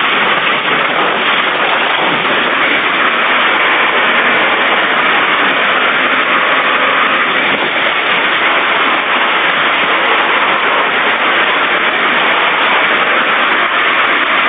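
Fire hose nozzle spraying a water stream onto a burning house: a loud, steady rushing hiss.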